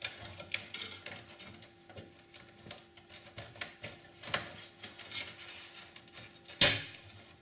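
Irregular small clicks, scrapes and rattles of a computer motherboard and its parts being handled and fitted into a Power Mac G4's metal case. The loudest is a single sharp knock near the end.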